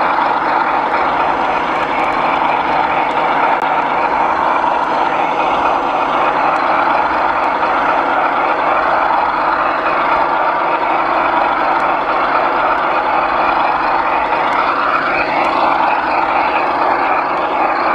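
Electric motor and gearing of a garden-scale model diesel locomotive running along the track, a steady whirring drone heard close up from the locomotive's roof. The pitch rises briefly near the end.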